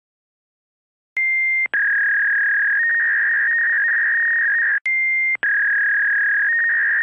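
Dial-up modem connection tones, confined to a telephone-line band: about a second in, a short high answer tone and a click, then a steady slightly lower tone over hiss that steps in pitch now and then. The sequence starts over about five seconds in.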